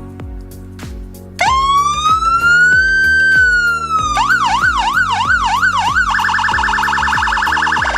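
Landun CJB110BP electronic siren cycling through its tones. About a second and a half in, a slow wail rises and falls. Around four seconds it switches to a faster yelp sweeping up and down about two or three times a second, and after six seconds to a very rapid warbling tone.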